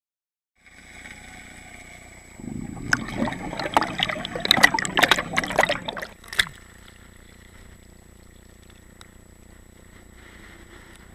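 Water sloshing and splashing around the camera as a diver breaks the surface, loud and irregular for a few seconds, then settling to a steady lower hiss.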